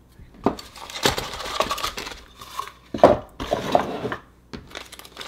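Small plastic parts bags crinkling and hard plastic pieces clicking and clinking as a miniature camera and its accessories are lifted out of a cardboard box, with a sharper knock about three seconds in.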